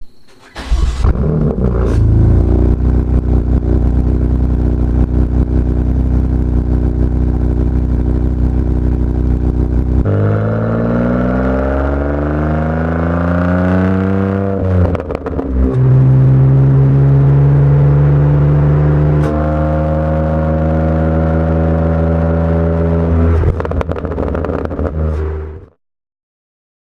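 BMW M2 Competition's S55 twin-turbo straight-six through an aftermarket exhaust: it fires up and idles, then revs up in a rising sweep, drops briefly, and holds steady at higher revs before cutting off abruptly near the end.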